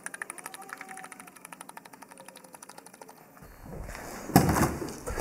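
Engine oil glugging out of a plastic bottle into the engine's filler neck, a quick, regular train of glugs that stops about three and a half seconds in. Two louder knocks follow near the end.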